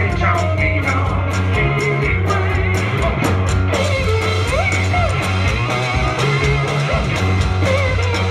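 Live country-blues band playing loud: electric guitar over a driving drum-kit beat with quick, even washboard or cymbal ticks, and a bending melody line on top.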